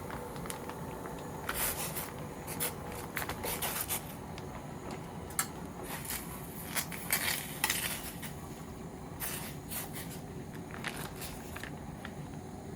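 Scattered scrapes and clinks of camp cookware and utensils being handled, over a steady background hiss.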